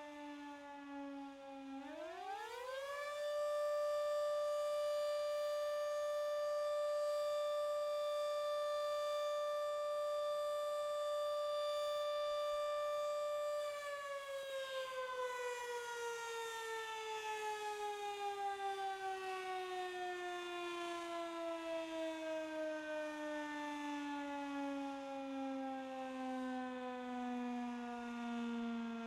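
A Federal Signal Model 3 electromechanical siren. It is winding down, then spins back up about two seconds in to a steady full-speed wail, holds it for about twelve seconds, then winds down slowly with its pitch falling through the rest. This is one blast of the German "fire call" test signal.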